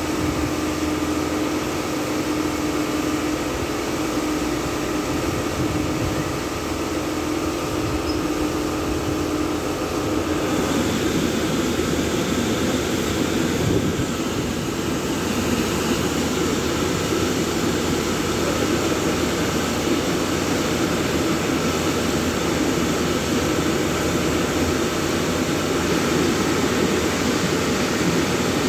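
Tunnel car wash machinery running: a steady motor hum with a few constant tones, joined about ten seconds in by a louder, rougher rushing noise that carries on steadily.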